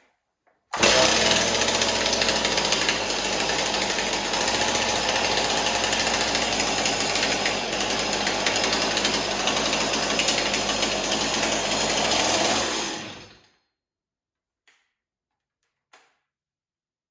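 A Stihl 026 two-stroke chainsaw, rebuilt with an MS260 piston and cylinder and a decompression valve, catches under a second in with the chain brake on and runs steadily for about twelve seconds. It then cuts off suddenly because the switch was flicked too far, to the stop position. A few faint clicks follow.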